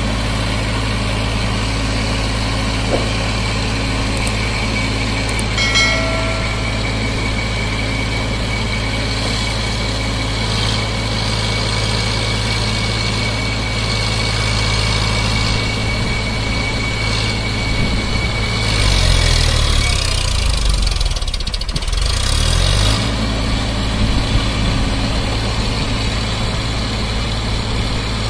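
Eicher tractor's diesel engine running steadily as it hauls a trailer loaded with wood. About 19 seconds in, its note drops and then climbs back over a few seconds.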